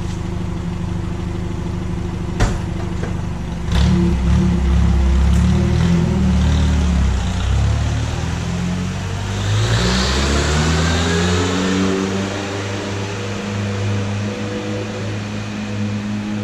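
Three-bell Kahlenberg K-3 air horn with all three bells open, sounding a goal-horn chord. A steady low hum comes first, with a sharp click about two and a half seconds in. The horn comes in loudly near four seconds, its notes wavering and sliding in pitch for several seconds, then gliding up and settling into a steady chord.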